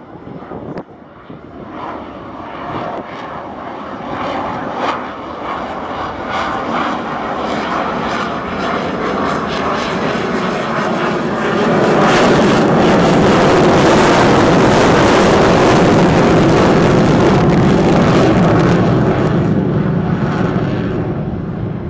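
Boeing C-17 Globemaster III's four turbofan engines as it flies past: the engine noise builds steadily for about twelve seconds, stays loud for several seconds, then begins to ease off near the end.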